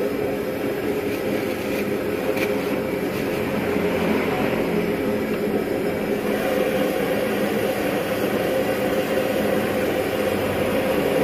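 Gas wok burner running under an empty wok being preheated, a steady rushing noise with a faint low hum in it.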